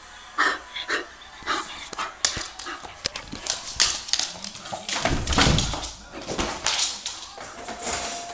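Bull terrier in a wild play frenzy, giving short excited barks and grunts amid rapid scuffling and scrabbling on a laminate floor. There is a heavy thump about five seconds in.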